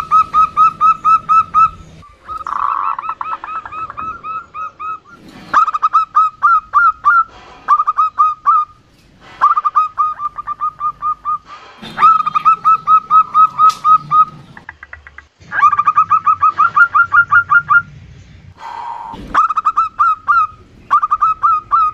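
Female zebra dove (perkutut) calling: runs of rapid, clipped notes, about ten a second, each run lasting one to two seconds and repeated after short pauses, the luring call used to set males calling.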